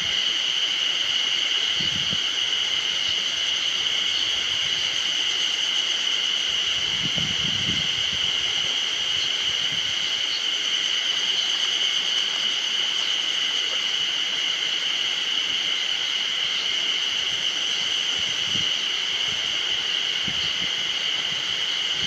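A chorus of spring cicadas singing in a steady, unbroken high buzz.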